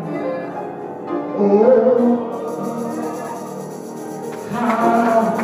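A man singing a slow gospel hymn solo, drawing out long held notes and swelling louder near the end.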